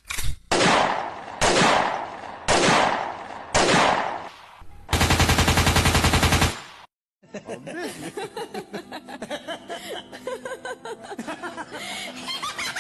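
Gunfire sound effect: four loud single shots about a second apart, each dying away, then a rapid machine-gun burst of about a second and a half.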